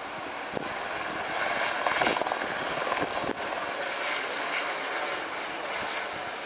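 Two Eurocopter EC120 Colibri helicopters flying over in formation, a steady turbine-and-rotor drone that swells about two seconds in.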